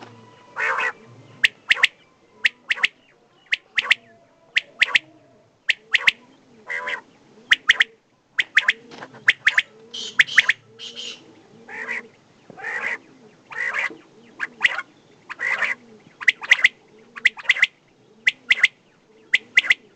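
Quail calling repeatedly: short, sharp notes in quick twos and threes, with some broader, harsher notes between them, a call every half second to a second.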